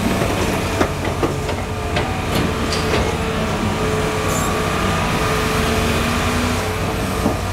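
Caterpillar 320 hydraulic excavator's diesel engine running steadily under load while it empties its bucket over a dump truck and swings back to the pile. Several sharp knocks in the first three seconds as the dumped material lands in the truck bed.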